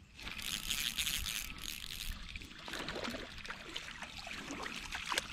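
A hooked bass splashing and thrashing at the pond surface while a spinning reel is cranked to bring it in. The splashing starts suddenly and is loudest in the first couple of seconds.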